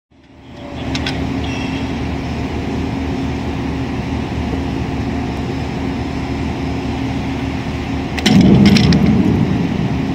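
Harbour crane machinery running with a steady hum and low rumble while the lifting hooks are lowered. About eight seconds in it grows louder for about a second, with a couple of sharp clicks.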